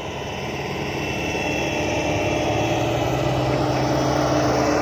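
Heavy diesel engine running steadily, growing gradually louder.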